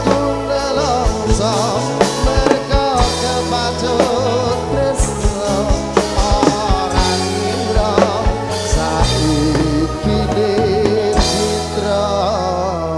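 Live dangdut koplo band playing: a male singer's wavering vocal line over drum kit, bass, electric guitars and keyboards, with frequent drum hits.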